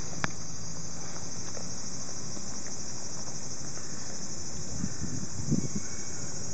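Steady high-pitched drone of summer cicadas, with a single sharp click just after the start and a few soft low sounds about five seconds in.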